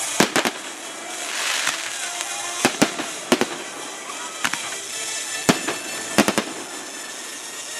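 Aerial fireworks going off in a string of sharp bangs, several coming in quick groups of two or three, over a steady hiss and a burst of crackling about a second and a half in.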